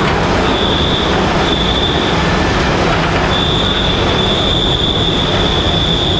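Beijing Metro SFM04 subway train heard from inside the car while running through the tunnel: a loud, steady rumble of wheels on rail, with a thin high squeal that comes and goes twice and then holds steadily from about halfway.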